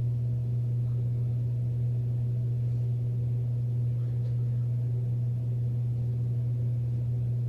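A steady low-pitched hum that does not change.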